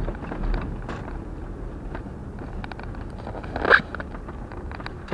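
Road and engine noise inside a Jeep's cabin while it is driving, a steady low rumble with scattered light clicks and rattles. About three and a half seconds in there is one brief, louder sound.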